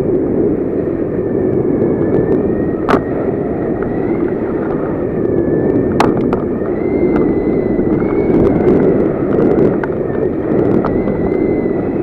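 Wind rushing over an action camera's microphone during paraglider flight, a loud steady buffeting with a faint wavering whistle above it. Two sharp clicks about three and six seconds in.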